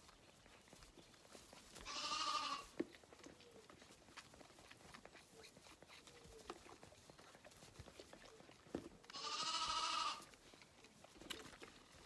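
Hungry Zwartbles lambs bleating for milk: two loud bleats of about a second each, one about two seconds in and another near ten seconds. Faint clicks and ticks come in between.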